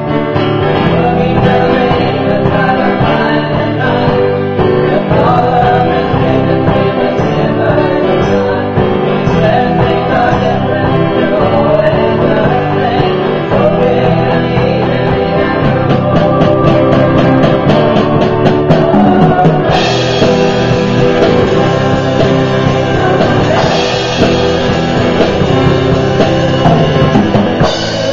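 Small band playing a rock song live, with a singer over electric and acoustic guitars, keyboard and drums.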